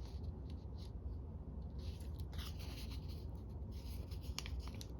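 Sheet of paper being handled and folded: soft rustles and scrapes with a few light clicks near the end, over a steady low hum.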